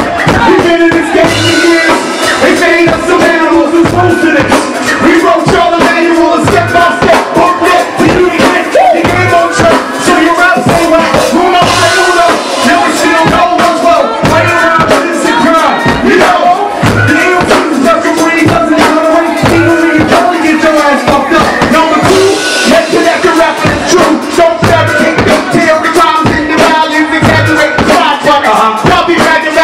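Live hip-hop played loud through a club PA: a steady beat with a deep kick drum repeating regularly, and rapping into microphones over it.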